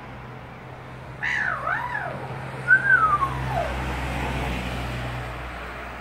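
Australian magpie calling: a wavering call that dips and rises in pitch, then about a second later a whistled note sliding down in pitch. A passing vehicle's low engine hum runs underneath, growing louder in the second half.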